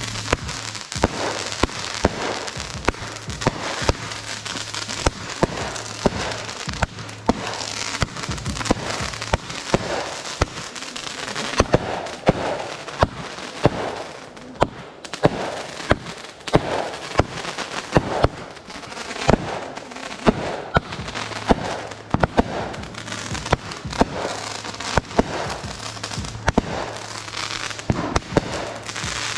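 Irregular sharp pops and cracks, at times several a second, over a continuous rushing noise.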